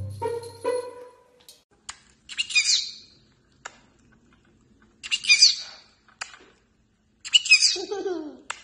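Small green pet parrot giving three short chirping calls a couple of seconds apart; the last call is longer, with a part sliding down in pitch. Music plays briefly at the start.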